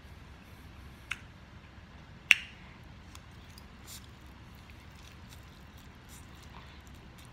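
A person eating ramen noodles with a fork: two sharp clicks, one about a second in and a louder one just after two seconds, then faint wet mouth ticks and soft slurping as noodles go into the mouth.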